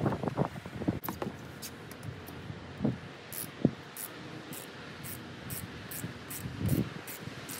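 A few dull knocks and thumps with light scuffing and rustling as hands work along the stock windshield visor of a Kenworth W900L; a short, sharper knock comes about three and a half seconds in.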